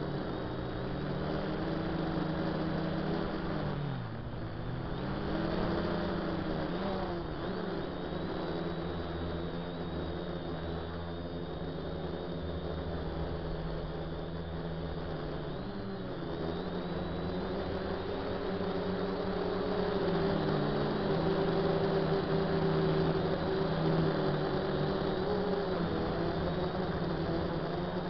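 DJI F450 quadcopter's four motors and propellers buzzing in flight, heard from the onboard camera. The pitch sags and climbs back twice, about four and about sixteen seconds in, as the motor speed drops and picks up again.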